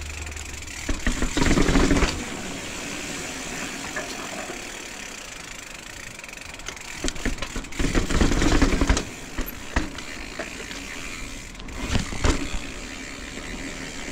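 Mountain bike rolling downhill over rough paving and stone steps: tyre noise with the chain and frame clattering in loud jolts about a second in, again for a couple of seconds in the middle as it goes down the steps, and once more near the end.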